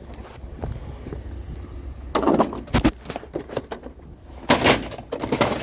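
Junk being handled: a few knocks, scrapes and rattles, loudest about two seconds in and again near the end.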